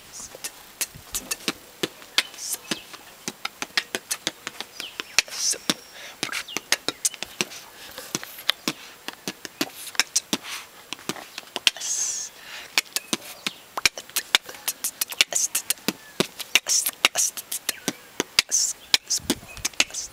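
A man beatboxing close to the microphone: a fast run of mouth-made clicks and pops, with now and then a short hissing cymbal-like sound.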